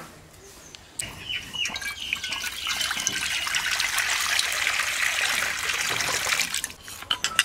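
Water pouring and splashing, starting about a second in and running for several seconds before it stops, followed by a few sharp clinks near the end.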